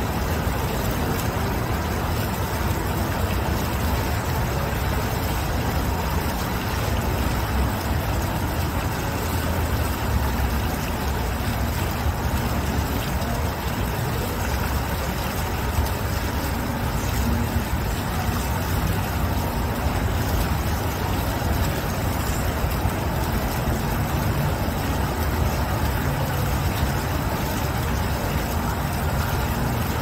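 Single-jet fountain splashing steadily as its water column falls back into the pool, with a constant low rumble underneath.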